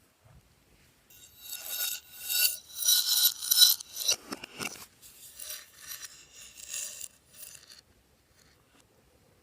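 Slime being mixed and worked by hand, giving crackly rubbing and scraping sounds. They are loudest a couple of seconds in and die away about two seconds before the end.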